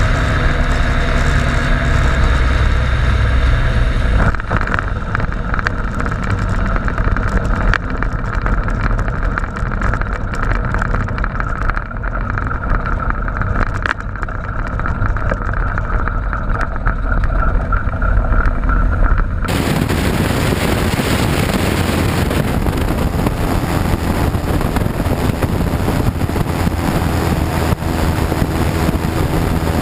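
Quicksilver Sport 2S ultralight's two-stroke engine and pusher propeller running steadily as the aircraft rolls along a dirt strip. About twenty seconds in, the sound cuts abruptly to a harsher, hissier engine-and-propeller noise with wind on the microphone.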